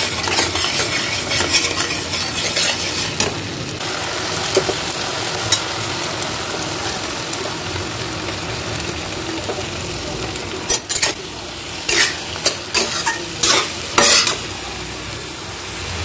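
Onion-tomato masala sizzling in a stainless steel kadai while a steel spatula stirs fried potato and fish through it. Toward the end comes a run of sharp clicks and scrapes as the spatula knocks against the pan.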